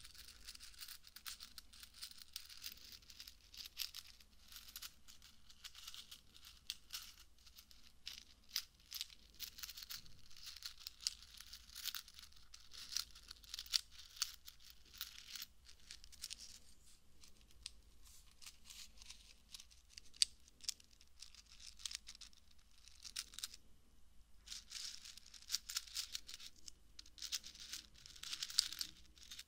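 Fingertips stirring and tapping the small silver pieces in a small round jar held close to the microphone: a dense crackling of tiny clicks, easing off for a moment about three-quarters of the way through before picking up again.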